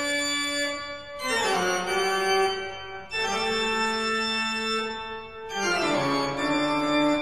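Organ music: sustained chords, with the pitch sliding down into the next chord twice.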